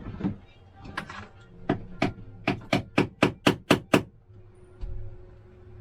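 Hammer tapping: a few scattered knocks, then a run of about ten sharp blows in the middle that come faster and louder before stopping.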